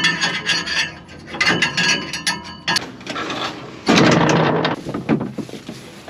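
Metal scraping and rubbing with knocks as packed dirt and chaff are cleaned out around a combine's straw-chopper knives. A louder rough scrape comes about four seconds in.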